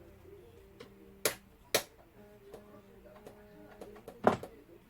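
Three sharp knocks or clacks during saxophone repair work: two close together about a second in, then a louder one near the end, over a faint steady hum.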